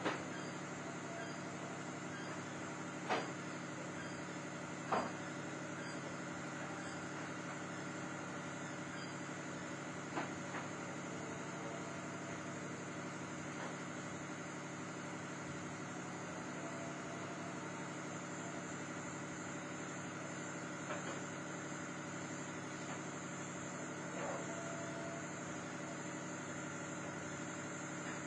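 A steady machine hum made of several steady tones, with a few short clicks scattered through it, the sharpest about three and five seconds in.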